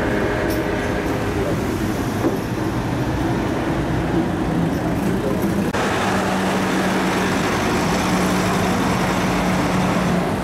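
Heavy diesel trucks running slowly amid street noise. About halfway through, a steady low engine hum from a Renault truck takes over.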